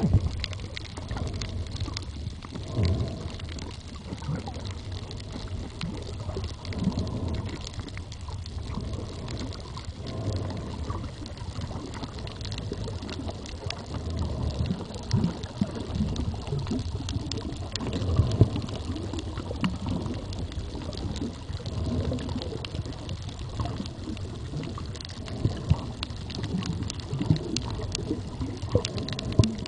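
Underwater ambience picked up by a camera held below the surface: a low, surging rumble of moving water with faint scattered clicks and crackles.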